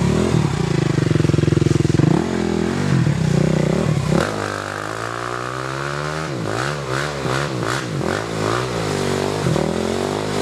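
Sport ATV (quad bike) engine revving through a trial section: loud and steady at first, then the pitch drops about four seconds in and rises and falls repeatedly as the throttle is worked on and off.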